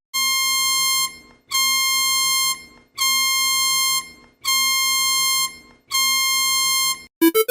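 Electronic emergency alert tone sounding five times, each a steady buzzy beep about a second long, repeating every second and a half. Just before the end a fast warbling alarm tone, alternating between two pitches, starts.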